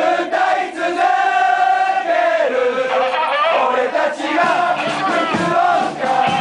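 A crowd of football supporters singing a chant in unison, with long held notes. A few drum beats come near the end.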